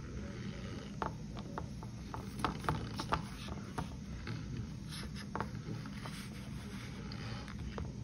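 Metal spoon pressing and digging into cold, packed starch powder in a glass bowl, giving scattered sharp squeaky crunches and clicks, about a dozen, over a steady low hum.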